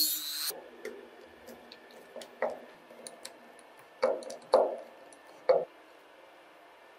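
Light clicks and a few short knocks of a metal screw and screwdriver being handled against a wooden board. The sharpest knocks come about two and a half, four, four and a half and five and a half seconds in.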